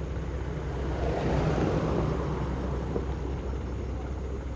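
A motor vehicle's engine running with a steady low hum, the noise swelling about a second in and easing off again, like a vehicle passing on the road.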